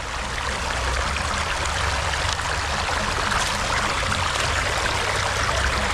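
Shallow, rocky stream running steadily over and around stones.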